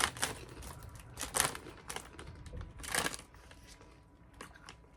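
Potato chips crunching and the chip bag crinkling: a few sharp crackling crunches about a second and a half apart, then fainter small crackles.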